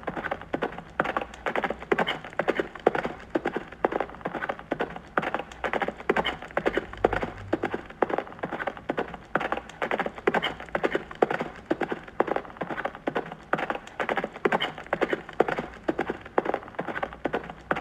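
Horse hooves clip-clopping in a steady, continuous rhythm of sharp strikes.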